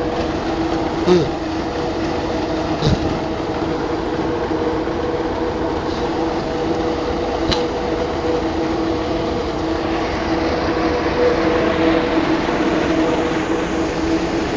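Claas combine harvester running, a steady mechanical hum with a few held tones, broken by a few brief sharp knocks in the first eight seconds.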